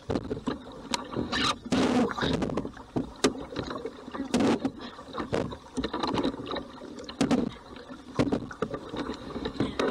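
Double-bladed kayak paddle dipping and splashing in hard, uneven strokes, about one a second, as the paddler pulls against a headwind.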